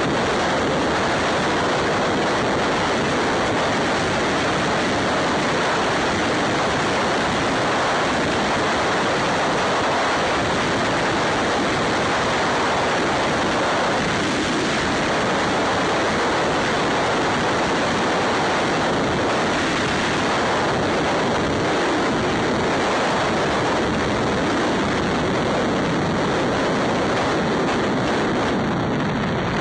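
Steady rush of wind over the microphone of a camera on a motorcycle riding at highway speed. It is an even, unbroken roar that covers any engine or tyre sound.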